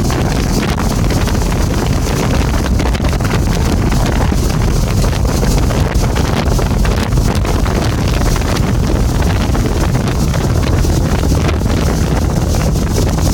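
Wind buffeting the microphone over the steady drone of a motorboat's engine running at towing speed and the rush of its wake, heard from on board the moving boat.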